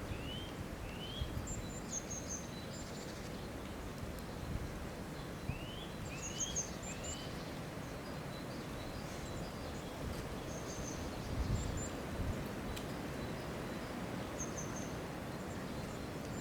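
Songbirds calling over a steady low rumble of outdoor air: short rising whistled notes come in twos and threes near the start and again around six seconds in, with high thin twittering notes scattered throughout.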